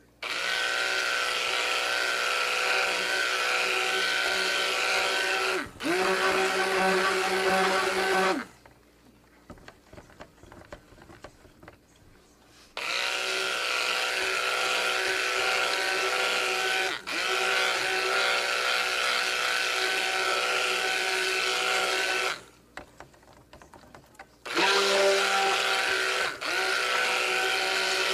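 Electric stick blender running in cold process soap batter to bring it to a thick trace, switched on and off in three long runs of several seconds each with pauses of a few seconds between. The motor hums at a steady pitch, dipping briefly now and then as it works the thickening batter.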